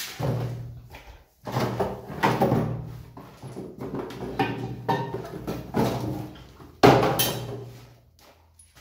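A new basin mixer tap being unpacked: its cardboard box and paper wrapping rustling and crinkling, with irregular knocks and clatters as the parts are set down in a ceramic washbasin. The loudest is a sudden burst about seven seconds in.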